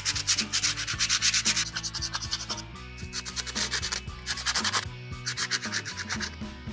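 Sandpaper rubbed quickly back and forth over a rusty metal tool part: fast rasping strokes, about six a second, in runs with short breaks, while background music plays.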